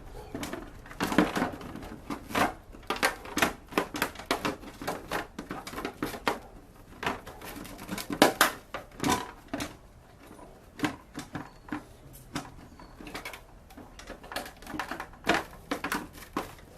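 Irregular clicks, taps and rattles of hard plastic parts and wiring being handled as a mobility scooter's wire harness and battery are fitted back into place.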